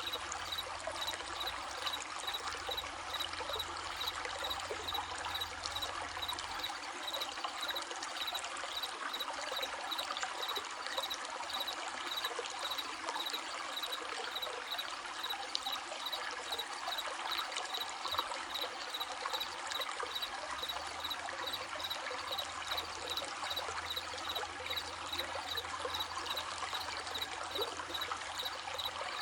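Stream babbling and trickling in a steady, even wash of water, with crickets chirping in a regular high-pitched pulse over it.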